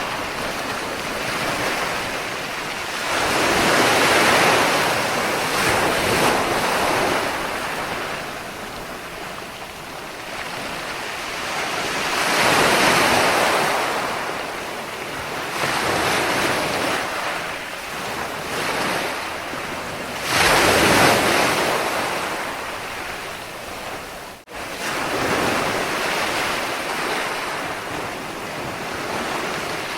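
Sea waves breaking and washing up the shore, a hissing surge that swells and falls back every few seconds. A momentary drop-out cuts the sound about three-quarters of the way through.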